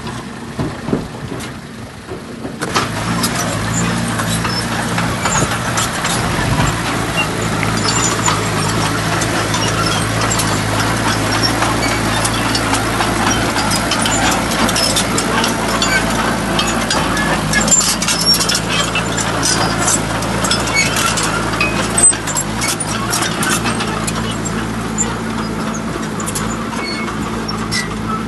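Heavy diesel truck engine running steadily, with many scattered clicks and knocks over it. The engine comes in abruptly about two and a half seconds in.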